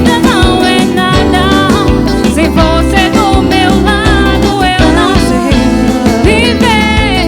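A band playing a melody-style pop song at full level, with a steady beat and a lead line that bends in pitch.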